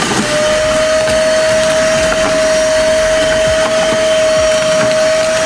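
Cordless vacuum cleaner running, its motor giving a steady rushing airflow noise with a single steady whine that comes in just after the start.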